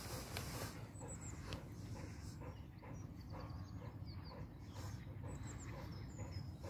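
Golden retrievers panting, about three breaths a second, over a steady low rumble, with small birds chirping now and then.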